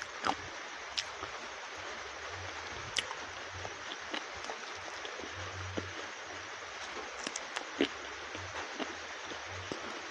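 Close-miked eating of a masala chicken wing: scattered wet mouth clicks and smacks of chewing over a steady hiss.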